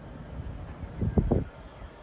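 Class 66 diesel locomotive's engine running at low speed, heard as a distant low rumble under wind noise on the microphone. About a second in, a brief cluster of loud low thumps.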